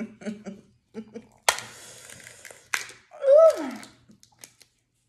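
Plastic-gloved hands breaking apart and peeling cooked seafood shell: two sharp cracks about a second apart with a crinkling rustle between them. A short vocal sound falling in pitch follows, and there is low murmured speech at the start.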